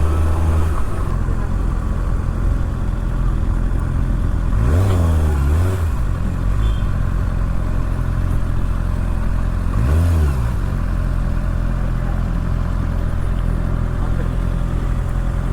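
Kawasaki ZX-6R 2024 inline-four engine running on the move. The revs rise and fall briefly twice, about five and ten seconds in.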